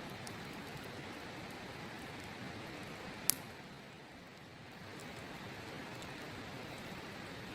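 Steady sound of a running river with the faint crackle of a wood campfire, and one sharp pop from the fire about three seconds in.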